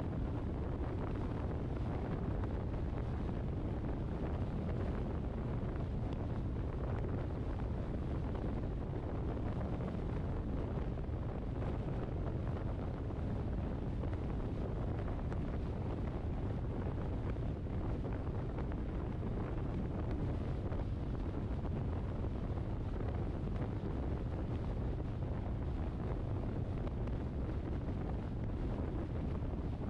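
Steady wind noise on a GoPro's microphone during a drive, a continuous low rumble with no distinct engine note.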